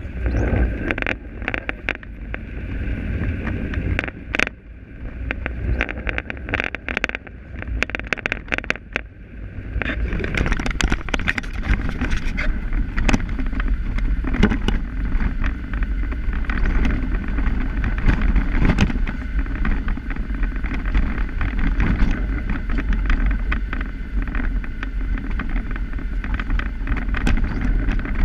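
Car driving on wet streets, heard from inside the cabin: a steady low road and engine rumble with frequent rattling clicks. From about ten seconds in, the hiss of tyres on the wet road grows louder.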